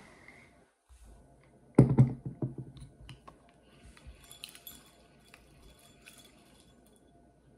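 Daiwa spinning reels handled on a wooden table: a knock about two seconds in as a reel is set down, followed by light clicks and rattles of the reels' metal parts.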